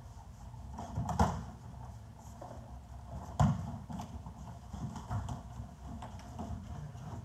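Sparring on gym mats: feet thudding and shuffling on the mat with strikes landing, including two sharp, loud smacks about a second in and again about three and a half seconds in.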